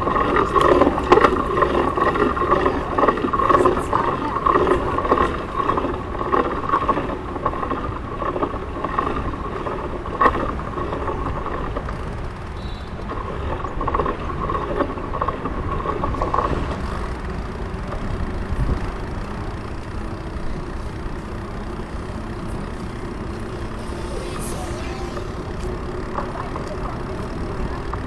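Traffic and road noise heard while riding a Citi Bike through city streets. It is louder and choppier for roughly the first ten seconds, then settles into a steadier, quieter hum.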